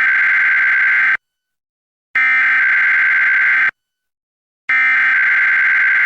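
Emergency Alert System SAME header data bursts: three bursts of shrill, warbling digital tones, each about a second and a half long with about a second of silence between them. This is the coded alert header that opens a Required Monthly Test, just before the attention tone.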